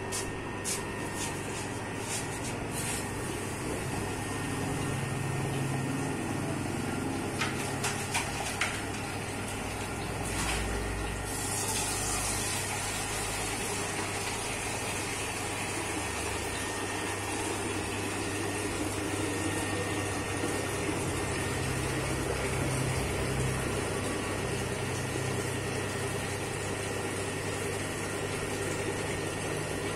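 Electric dough-kneading machine running steadily, its arms churning thick bread dough in a steel bowl: an even motor hum with a churning noise over it. A few sharp clicks come near the middle, and a higher hiss joins about a third of the way through and stays.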